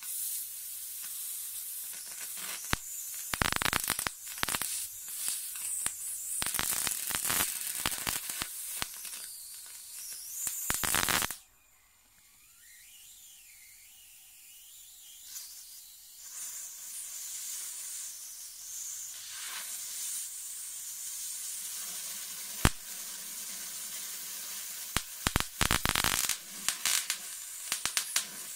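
High-voltage discharge from a homemade 150–200 kV diode-capacitor voltage multiplier, fed by a flyback transformer: a steady hiss of purple brush discharge broken by spells of dense crackling sparks. The crackling cuts off suddenly about eleven seconds in, then the hiss returns, with one sharp snap about two thirds of the way through and another run of crackling near the end.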